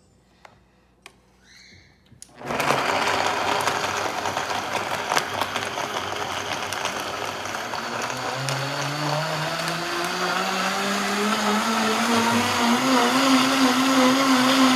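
Vitamix blender starting up about two seconds in and blending bananas, milk and ice cubes into a smoothie. Its motor whine rises steadily in pitch as the variable speed dial is turned up.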